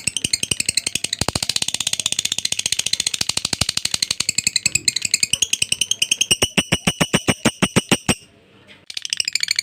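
Lovebird singing its long 'ngekek' chatter: a fast, unbroken stream of sharp, high chirps that stops for under a second near the end and then starts again.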